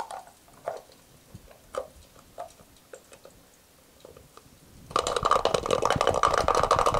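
Garlic cloves rattling inside a small closed shaker cup, shaken to knock off their papery skins. A few light clicks and taps come first as the cup is handled, then about five seconds in a fast, loud rattle of cloves against the cup's walls.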